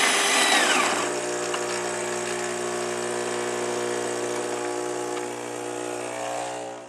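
Krups EA8200 automatic espresso machine: the built-in grinder's whine winds down in the first second, then the machine's pump hums steadily as it pushes water through the ground coffee to brew a 0.7-ounce shot, cutting off just before the end.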